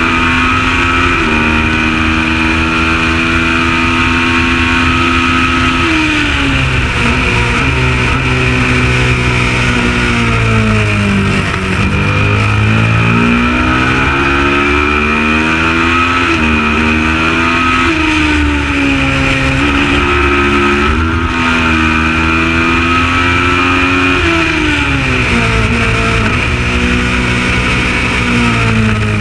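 Kawasaki ER650 parallel-twin race motorcycle engine running hard under racing load, its revs dropping steeply and climbing again several times as it is ridden through a lap.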